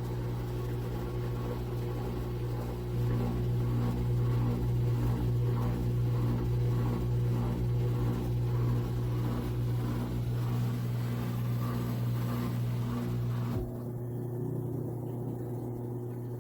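Hermitlux tabletop dishwasher running just after starting: a steady motor-pump hum with a rhythmic pulse about twice a second. It gets louder about three seconds in and drops off abruptly near the end.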